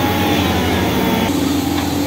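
Heavy diesel excavator engines running steadily, with a steady low hum; about a second in, the mix shifts to a steadier, higher hum.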